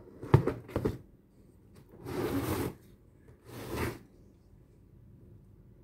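Handling noise from a heavy finned aluminium motor controller being turned over and held up: a few sharp knocks near the start, two rubbing scrapes in the middle, and another sharp knock at the end.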